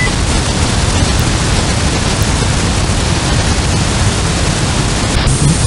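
Shortwave receiver audio at 7.000 MHz in the 40-metre band: a loud, steady rushing noise with a rough, choppy low rumble underneath. It is man-made radio interference that covers the whole band.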